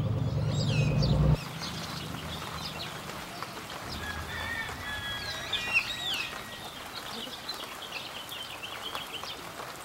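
Music cuts off about a second in. After that, birds chirp and call over a steady outdoor hiss, with a burst of louder calls about midway.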